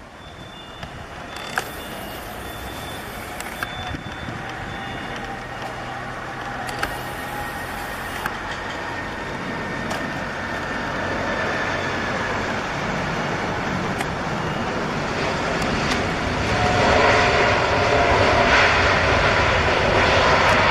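Jet engine noise of a landing Boeing 747-400 freighter, growing steadily louder and loudest in the last few seconds.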